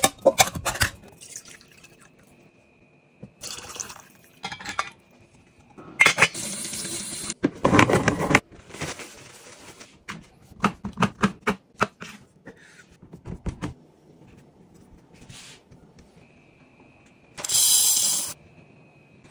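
Kitchen prep sounds in sequence: the ring-pull on a metal can of chicken stock clicking and cracking open, liquid pouring steadily for about a second and a half about six seconds in, scattered clicks and taps from handling, and dry rice grains pouring into a ceramic bowl as a loud steady hiss near the end.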